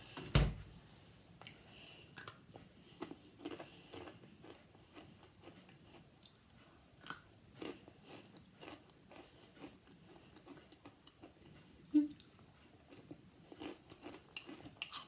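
A person chewing a crunchy Takis Fuego rolled tortilla chip with the mouth closed, irregular crunches scattered through. One sharp, loud thump about half a second in, and another sharp crunch near the end.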